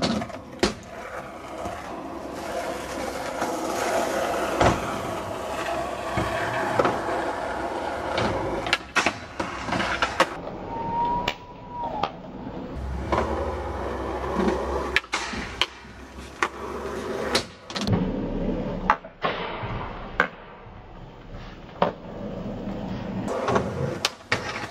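Skateboard wheels rolling over asphalt, broken again and again by sharp clacks of the board's tail popping and the deck landing.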